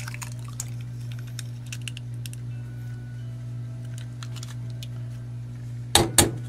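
Eggs being cracked into a stainless steel bowl: scattered light clicks and ticks of shell against the bowl over a steady low hum, then two sharp knocks close together near the end as the next egg is tapped on the bowl's rim.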